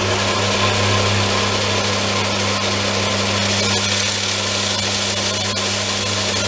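Bench belt sander running with a steady motor hum. From about halfway through, a metal bracket is held against the belt to dress its sawn edges, adding a hissing grind.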